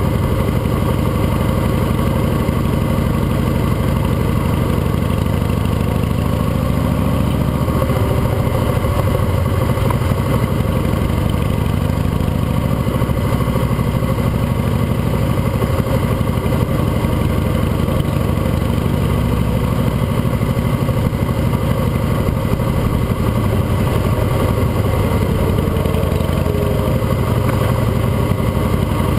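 Custom Harley-Davidson motorcycle's V-twin engine running steadily while riding, heard from a camera mounted on the bike.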